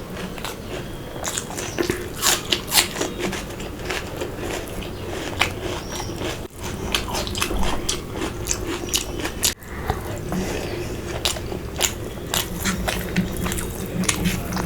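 Close-miked eating: a person chewing and biting, with clusters of crisp crunches about two seconds in and again near the end.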